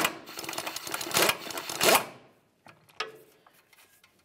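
Ratchet with a 21mm socket spinning the upper ball joint's castle nut loose on its stud: a rapid run of clicking that stops about two seconds in. A single light click follows.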